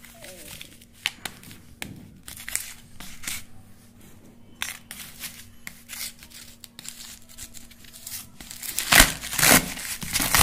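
Packing tape and plastic wrap being pulled and torn off a corrugated cardboard box: scattered crinkles and crackles, turning into louder, denser ripping near the end.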